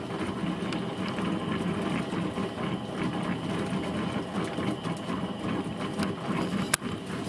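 Stovetop percolator coffee pot perking on the burner, a steady run of quick bubbling and gurgling as the boiling water is pushed up through the pot: the coffee is brewing.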